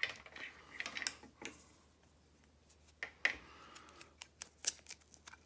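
A charging cable and its plastic packaging being handled: scattered light clicks and short rustles, the loudest about three seconds in and again near five seconds.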